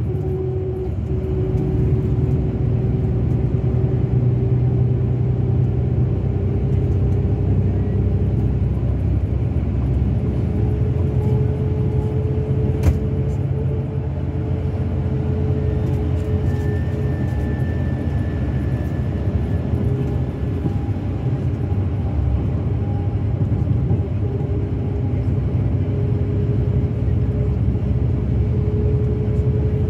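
Mercedes-Benz O-500RSD 2441 coach's diesel engine running at a steady cruise: a continuous low rumble with a faint whine that rises slightly over the first half and then holds. A single sharp click sounds about halfway through.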